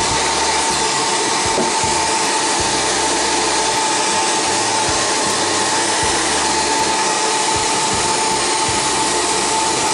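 Hot-air blower running steadily, a loud rush of air with a steady whine, heating vinyl wrap so it softens and molds to the phone's edges.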